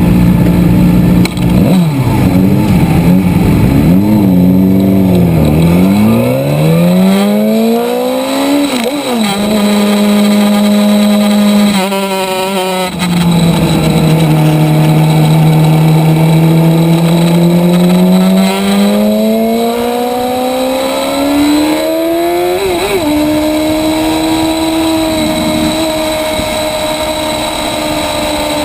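Motorcycle engine heard on board at speed on a race track, its pitch rising under acceleration and falling off again through the corners. There are a few quick breaks in the note where gears are shifted.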